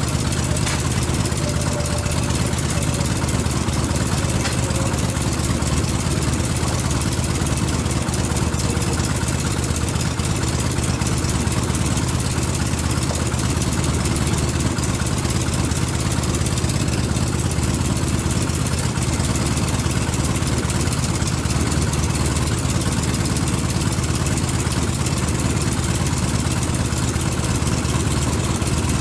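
Yamaha XS650 air-cooled parallel-twin engine idling steadily after a top-end rebuild with new valves and adjusters.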